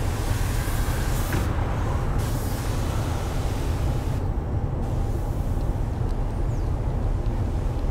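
Steady low vehicle rumble under a broad hiss; the hiss changes level abruptly a few times.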